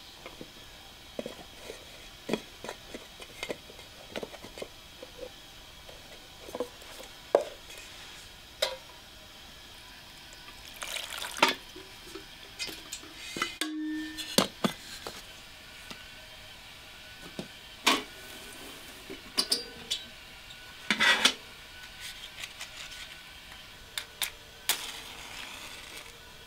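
Chunks of raw pumpkin knocking and clattering into an aluminium pot, then an aluminium lid set on it; scattered separate knocks with a few longer scraping stretches.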